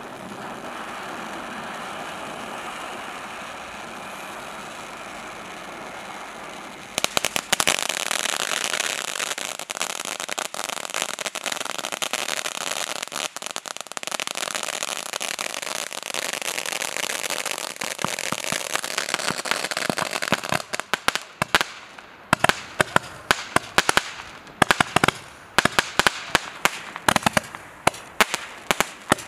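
A 9-shot 200 g consumer firework cake going off. It starts with a steady hissing spray. About seven seconds in, dense crackling takes over, and in the last third it breaks into louder, separate sharp cracks and pops.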